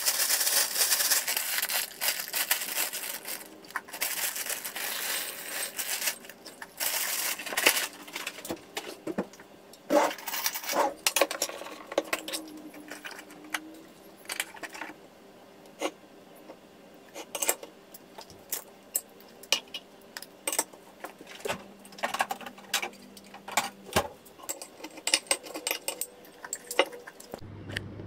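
Dry oat cereal poured from a bag into a ceramic mug: a rattling patter of pieces landing, in a few spurts over the first seven seconds. After that come scattered light clinks and knocks of the mug and containers, with milk poured in from a carton partway through.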